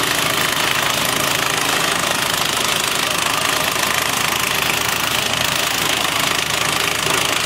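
Compact LGW tractor running under load, driving a PTO-powered branch chipper with two knives and hydraulic feed rollers as branches are fed in and chipped. A steady, dense mechanical noise with no let-up.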